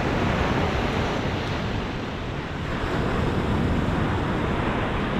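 Ocean surf washing onto a beach, with wind buffeting the microphone.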